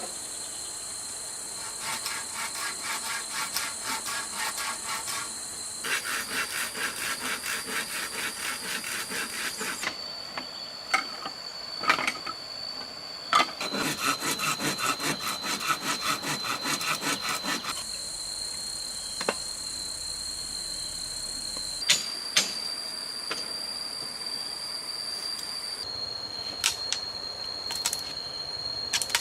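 Wood being sawn by hand in runs of rhythmic back-and-forth strokes, about two to three a second, broken by a few sharp knocks. A steady high-pitched tone runs behind.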